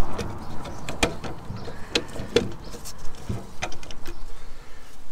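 Irregular light metallic clicks and taps as the handbrake cable and its fitting on a new rear brake caliper are handled and settled into place.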